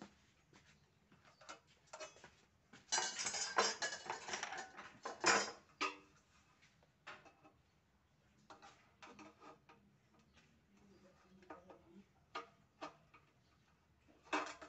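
Light-gauge galvanized steel hollow section and hand tools clattering and scraping for a couple of seconds, about three seconds in. Then a run of sharp clicks and short crunches as aviation snips bite into the thin steel.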